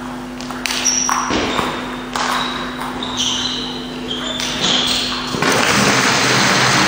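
A table tennis rally ending, with the ball knocking and short high squeaks of shoes on the hall floor, then spectators applauding from about two-thirds of the way in.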